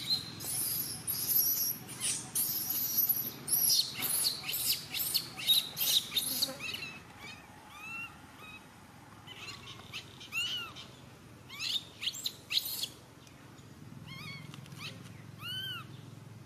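Young macaque crying: a fast run of shrill squeaks and chirps over the first seven seconds, then separate short cries that rise and fall in pitch.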